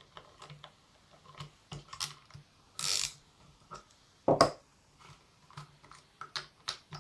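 Small metal clicks and scrapes of a socket tool working the 8 mm nuts on a VW ignition coil's ignition module, with one louder knock about four and a half seconds in.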